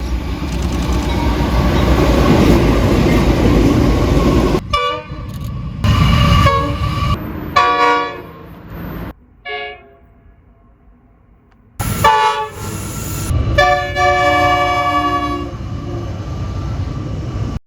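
Loud noise of a passing train, then a multi-tone train horn sounding several short blasts and a longer one about 14 seconds in, over the train noise, which cuts off suddenly at the end.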